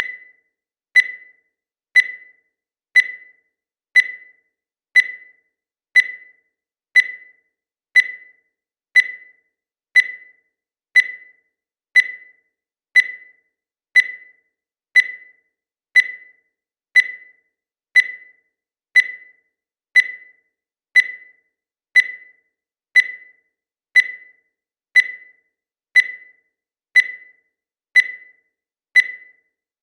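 Digital countdown timer beeping once a second: a short, high beep that fades quickly, repeated evenly about thirty times, one for each second counted down.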